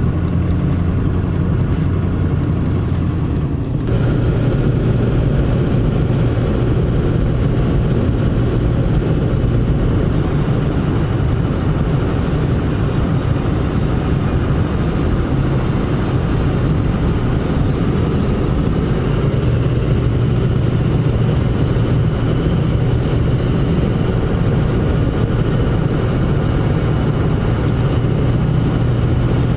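Vehicle engine and road noise heard from inside the cab while driving at highway speed, a steady low drone whose pitch shifts about four seconds in.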